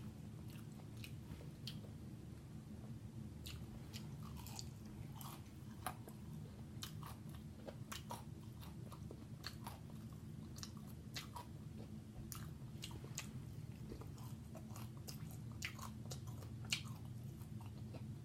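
Close-miked eating of corn on the cob: kernels bitten off the cob and chewed, giving many irregular, juicy crunching clicks, over a steady low hum.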